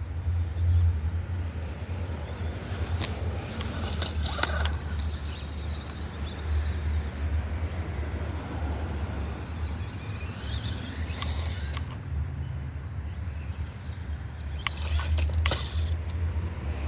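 An FMS Smasher V2 RC monster truck driving, its electric motor whining up and down as it speeds up and slows, over a steady low rumble. There are a few sharp clicks of the truck over rough ground.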